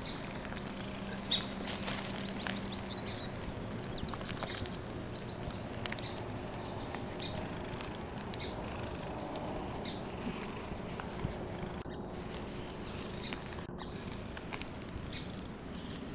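A tabby cat purring while it is stroked, under a steady high-pitched background call that sharpens into short chirps about every second and a half.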